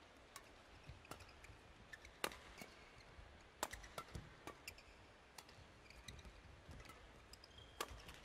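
Badminton rackets striking the shuttlecock during a doubles rally: a string of sharp cracks at irregular intervals, roughly one a second, over faint arena background.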